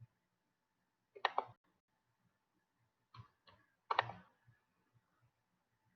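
Short, sharp clicks from working a computer while setting up a recording session. There is a quick pair about a second in and a few more around three to four seconds in, the last of these the loudest.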